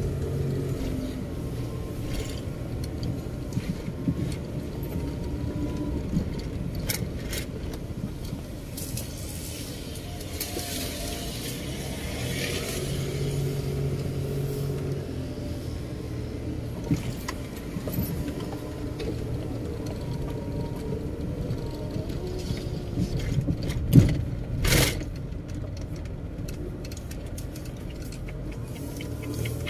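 Road and engine noise inside a moving car's cabin: a steady low rumble, with two sharp knocks in quick succession about three-quarters of the way through.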